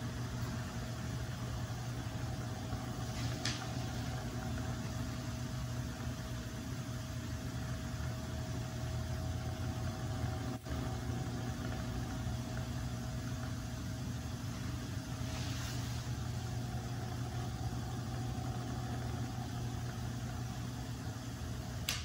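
Cadence Erus Turbo desk fan running with swapped-in propeller blades: a steady whir with a strong low hum and a faint steady tone above it. There is a brief click about halfway through.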